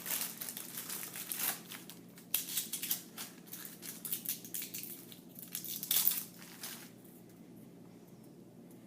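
Fortune cookie's plastic wrapper crinkling and the cookie crunching as it is broken open, in irregular crackles with two sharper cracks, stopping about seven seconds in.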